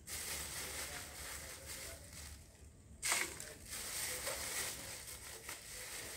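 Plastic crinkling and crackling as a cut plastic bottle and a clear plastic bag are handled, with a sharper, louder crackle about three seconds in.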